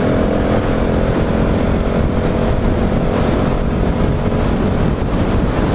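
Husqvarna 701 Supermoto's single-cylinder engine running steadily at highway speed, around 80 mph, under a heavy rush of wind and road noise on the microphone.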